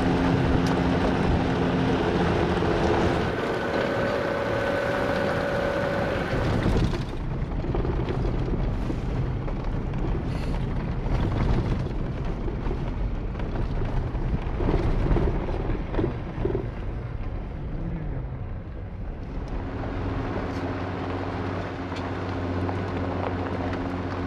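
Jeep Wrangler driving on a dirt track into a strong headwind: steady tyre and wind noise with engine drone. The sound changes abruptly about seven seconds in, and a steady low engine hum comes through again near the end.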